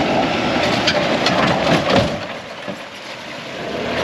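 Four-wheel-drive vehicle's engine running as it crawls along a rough track, with knocks and clatter about one to two seconds in.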